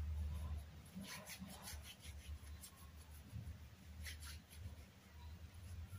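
Hands rubbing together, palm against palm and over the backs, in faint repeated swishes. A low steady hum lies underneath.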